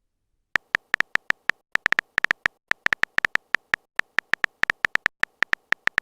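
Smartphone keyboard typing sound effect: a quick, irregular run of short, sharp key clicks, several a second, as a text message is typed.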